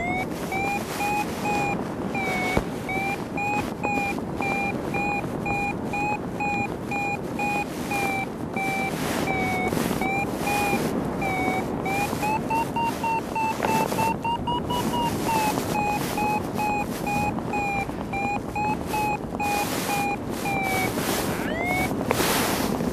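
Paragliding variometer beeping in quick, steady pulses, its pitch rising about halfway through and then settling back: the sign of the glider climbing in lift, the climb strengthening for a few seconds. Strong wind rushing over the microphone underneath.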